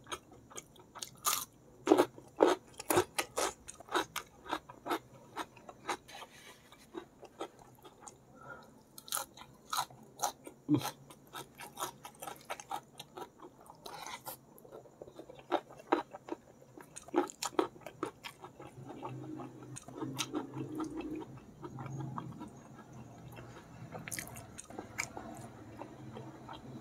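Close-miked eating: raw baby cucumber bitten and chewed with many sharp, crisp crunches through the first half, then softer, wet chewing of a mouthful of rice and spicy squid.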